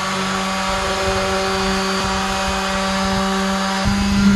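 Handheld cordless power saw running steadily as it cuts plywood, a held motor note over a rasping noise. It gets louder about four seconds in.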